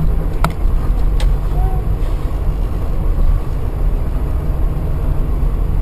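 Steady low rumble of a moving vehicle's engine and road noise, with two short clicks about half a second and a second in.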